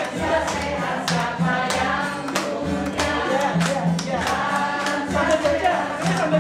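A group of people singing a cheerful Indonesian song together in unison, with an acoustic guitar strummed along and hand-clapping on the beat about twice a second.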